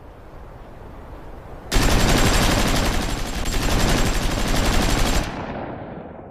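German machine gun firing one long continuous burst. It starts sharply about two seconds in, after a low rumble that builds up slowly, and lasts about three and a half seconds before fading out in an echo.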